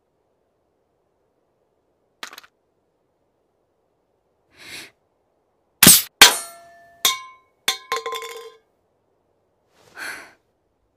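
An airsoft M1911 pistol fires with a sharp crack, and an aluminium drink can is hit with a clang and clatters down with several ringing metallic clinks. A small click comes about two seconds before the shot.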